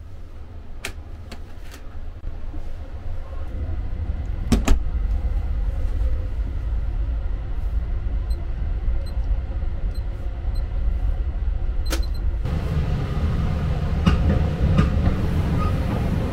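Steady low rumble of the Sunrise Izumo sleeper train's carriage in motion, broken by a few sharp clicks and knocks from the compartment door and its lock. Short, faint, evenly spaced beeps come as the door's keypad lock is pressed. About three-quarters of the way through, the running noise grows louder and fuller as the way opens into the corridor.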